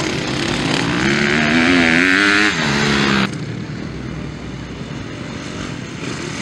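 Motocross bike engine revving hard, its pitch rising and falling with the throttle. About three seconds in it cuts off abruptly to a quieter, steadier engine sound.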